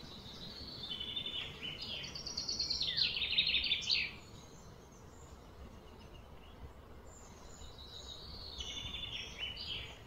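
A bird singing two fast, high trilled phrases. The first, longer and louder, comes in the first few seconds; the second comes near the end. Both sit over a steady outdoor background hum.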